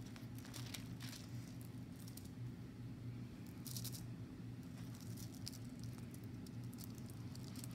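Faint rustling and crinkling of paper and a plastic film cover as a folded diamond-painting canvas is uncovered and handled, in short bursts, the strongest a little under four seconds in, over a steady low hum.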